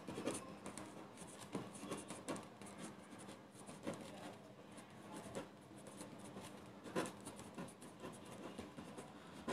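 Pen writing on a sheet of paper: faint, irregular scratching strokes.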